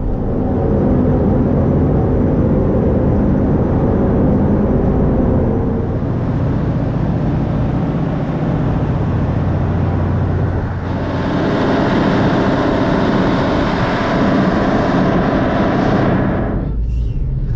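Steady low engine rumble. About eleven seconds in, a brighter rushing noise joins it and then cuts off suddenly shortly before the end.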